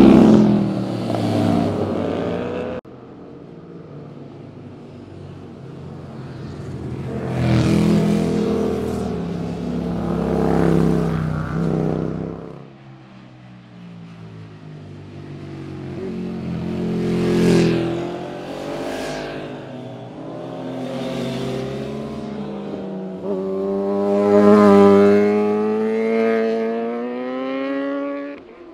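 Sport motorcycles passing one after another through a bend, each engine revving and its pitch swelling and falling as the bike goes by. There are about five passes, and the sound breaks off abruptly between some of them.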